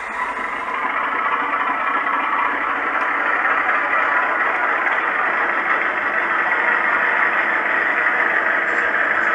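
Recorded diesel engine running sound from the DCC sound decoder of an O gauge model diesel locomotive, played through the model's small speaker. It comes up sharply at the start, then runs steadily.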